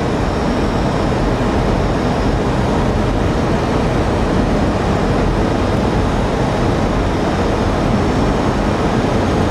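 Steady rush of airflow and engine noise in a Boeing 737 cockpit on short final approach, below decision height, with no distinct events.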